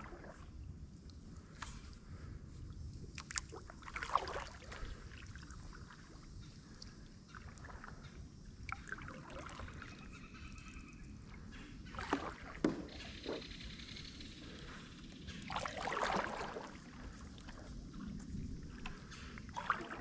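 Stand-up paddleboard paddle strokes, the blade dipping and pulling through the water with a swish every few seconds, over a steady low rumble.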